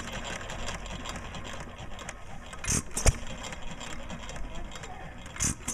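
1924 Fairbanks-Morse Z 2 hp single-cylinder hit-and-miss engine running, coasting on its flywheels between firings. It fires twice, about three seconds in and again near the end, each a sharp double bang.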